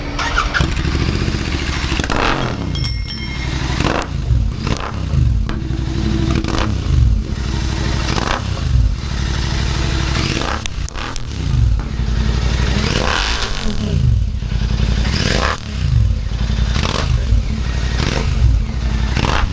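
Royal Enfield Continental GT650's 648 cc parallel-twin engine running through a Red Rooster Performance aftermarket exhaust with the dB killer removed. It is blipped repeatedly, every second or two, the revs rising and falling each time, with crackles and pops like firecrackers as the revs drop.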